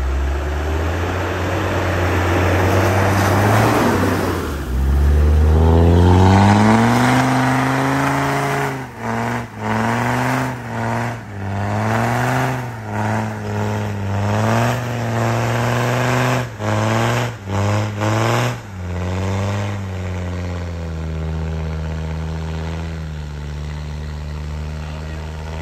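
Land Rover Discovery 2's Td5 five-cylinder turbodiesel under heavy throttle, climbing a snowy track. About eight seconds in it revs up, then gives a quick string of about a dozen short throttle bursts that each rise and cut off, and near the end it settles to steady, lower running.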